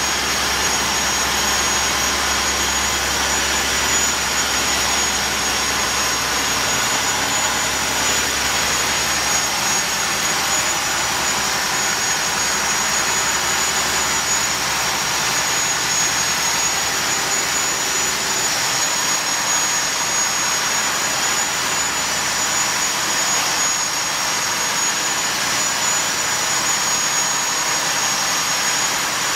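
A fishing trawler's engine running steadily under way, a constant drone with a steady hiss over it.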